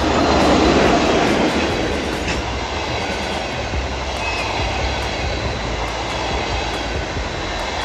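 Electric locomotive and its passenger coaches passing close by at speed. The sound is loudest in the first second or so as the locomotive goes past, then settles into the steady rush of the coaches' wheels on the rails with faint clicks over the rail joints.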